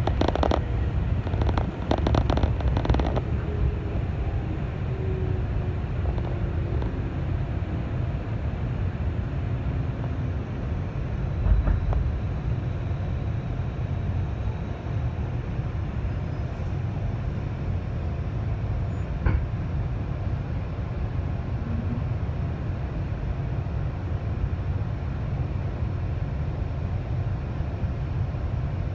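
Running noise heard inside a JR 211 series electric train: wheels clattering fast over rail joints for the first few seconds, then a steady low rumble with a faint hum that falls in pitch as the train slows. A single thud comes about a third of the way in.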